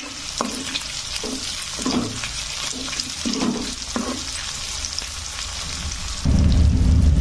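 Onion, tomato, garlic, dried red chillies and coriander seeds sizzling in oil in a kadai, with a few short stirring sounds. About six seconds in, a loud low rumble sets in.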